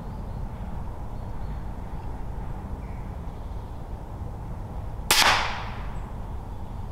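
A single sharp shot from a PCP air rifle about five seconds in, with a short tail fading after it.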